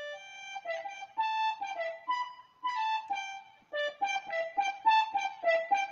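Akai EWI 5000 electronic wind instrument played on its "Square MW Growl" synth voice: a quick melodic run of short, clean notes moving up and down.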